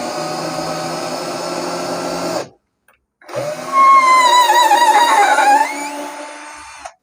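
Bosch 12 V cordless drill-driver's motor whining in two runs. It stops about two and a half seconds in and starts again a moment later, louder this time, with a pitch that wavers before it fades out.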